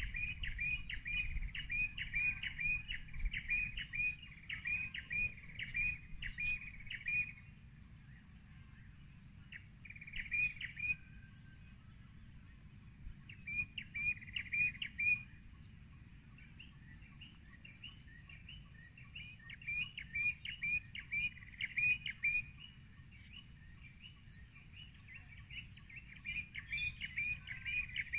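A bird calling in runs of short, repeated chirps, about two a second, with pauses of a few seconds between runs. A steady low rumble lies underneath.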